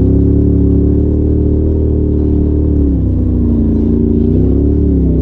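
Polaris RZR Turbo side-by-side's turbocharged twin-cylinder engine running while driving a dirt trail, holding a steady pitch, dropping about three seconds in and rising briefly near the end.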